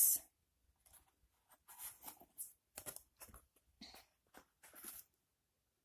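Cardboard pages of a board book with sliding flaps being turned and handled: a string of short scrapes and taps, about three a second, that stop about a second before the end.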